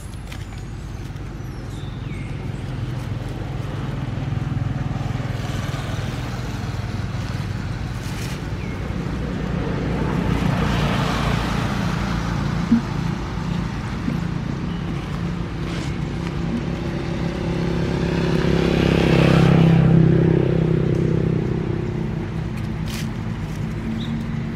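Engine hum of passing motor vehicles, swelling twice, about ten seconds in and again near twenty seconds, with one sharp click in between.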